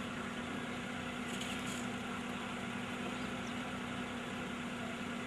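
A steady machine hum, even and unchanging, over a constant hiss.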